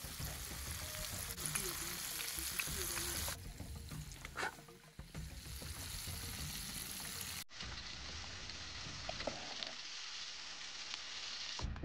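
Floured, curry-seasoned chicken pieces frying in hot oil in a frying pan, a steady sizzle.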